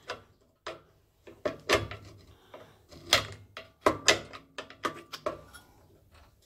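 Irregular sharp knocks and clicks of a motorcycle tyre lever prying a plastic cooling fan off the shaft of an air compressor's electric motor, the fan shifting on the shaft as it is worked loose.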